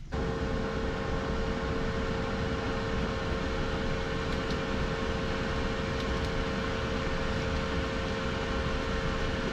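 Small wire-caged electric fan in a van's cabin running: a steady hum with one clear high note over a constant whooshing hiss.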